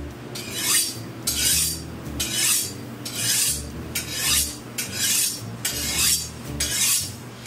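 Kitchen knife drawn stroke after stroke along a steel honing rod, each stroke a short metallic scrape, in a steady rhythm of roughly one a second.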